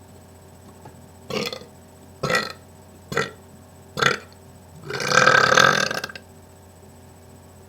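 A man belching on command: four short burps about a second apart, then one longer, louder burp. They are forced burps of swallowed air, brought up without any drink first.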